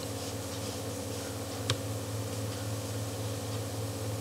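Room tone: a steady low electrical hum with light hiss, and a single sharp click just under two seconds in.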